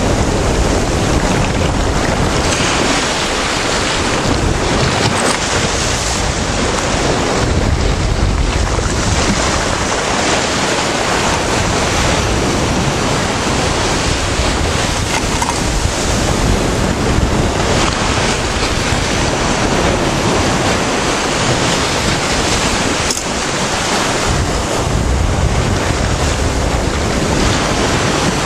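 Surf washing and breaking beneath a wave gauge at a river mouth, swelling and easing every few seconds, with wind noise on the microphone.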